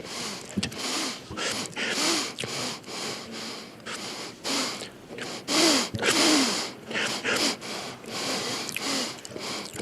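A man sniffing sharply through the nose again and again, a sniff every half second to second, with short snatches of his voice in between.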